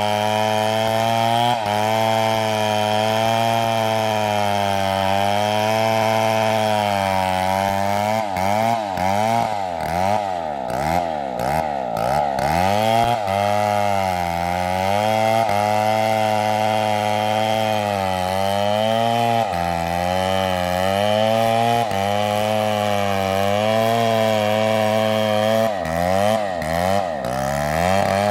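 STIHL two-stroke chainsaw running under load, cutting palm wood, its engine pitch dipping and recovering again and again as the chain bites. The pitch swings are quickest and deepest in the middle stretch.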